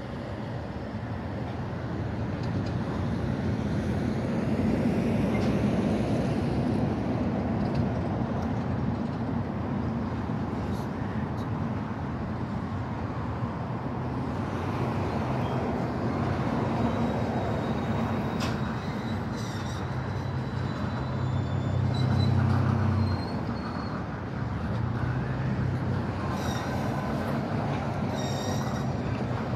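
Union Pacific maintenance-of-way train approaching on the rails. Its lead unit's engine hums low over the rumble of wheels on track, growing louder over the first few seconds. The engine note is strongest a little over two-thirds of the way in, then dips briefly, and faint high squeaks come in near the end.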